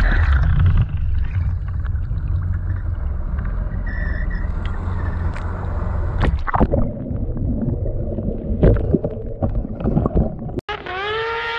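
Snowmobile engine note cutting off as the sled plows into water, then water churning, splashing and gurgling around the swamped, half-sunk snowmobile with a low rumble underneath. About ten seconds in there is an abrupt cut to a steady, high-pitched engine drone.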